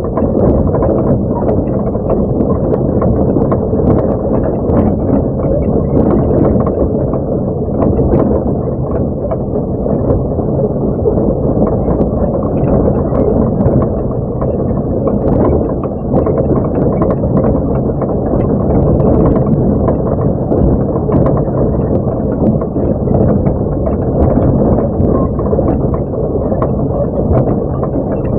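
Truck engine running steadily under load, heard from inside the cab while driving a rough dirt track, with frequent small knocks and rattles throughout.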